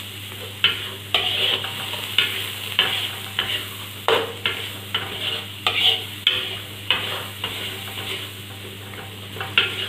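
Metal spatula scraping and stirring thick curry paste in a wok, about two or three strokes a second, with the paste sizzling as it fries.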